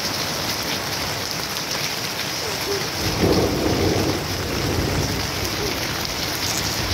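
Steady rain falling on puddled ground and garden foliage, with a low rumble of thunder coming in about three seconds in and rolling on underneath the rain.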